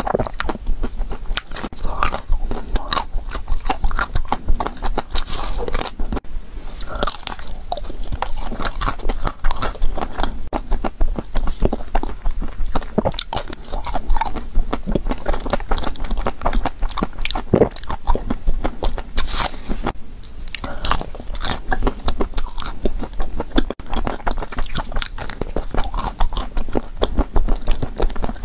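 Close-miked biting and chewing of a chocolate-coated ice cream bar: the hard chocolate shell cracks and crunches in quick, irregular clicks as it is bitten and chewed, with wet mouth sounds.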